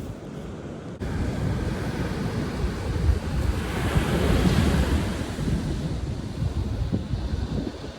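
Ocean surf on a beach, with wind buffeting the microphone as a low rumble. The sound jumps up about a second in, and a wave swells and washes in around the middle.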